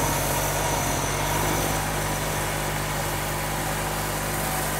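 Craftsman snowblower's engine running steadily at an even speed.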